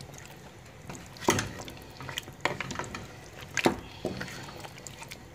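A spoon stirring and turning pieces of meat and stockfish in a cooking pot: wet stirring with several sharp knocks of the spoon against the pot, the loudest about a second in and near the middle.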